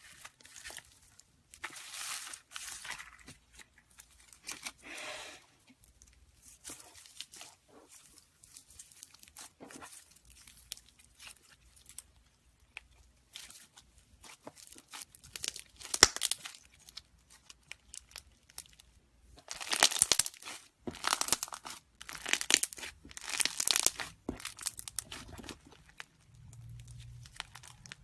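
Foam slime being squeezed and pressed by hand, crackling and crunching in irregular bursts, with a sharp snap just past halfway and a denser run of crunching in the last third.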